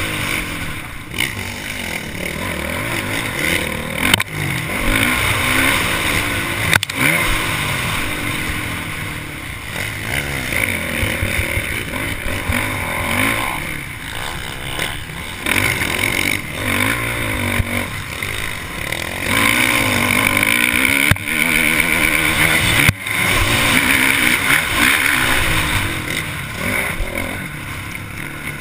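Motocross bike engine heard from on board, revving up and down as the rider shifts and throttles through the track at racing pace. Several sharp knocks cut in as the bike hits bumps.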